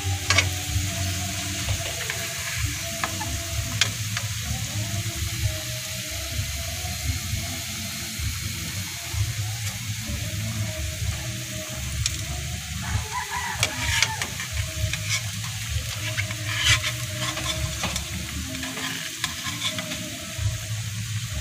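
Bananas sizzling steadily as they fry in hot oil in a metal pan. A metal spatula scrapes and knocks against the pan now and then as the bananas are turned, several times near the middle and towards the end.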